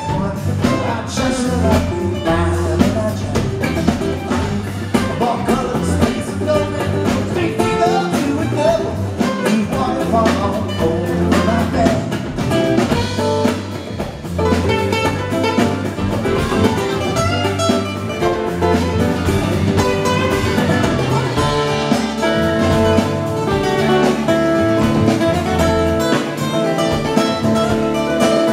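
Live acoustic band playing a song: two acoustic guitars and an electric bass over a hand drum.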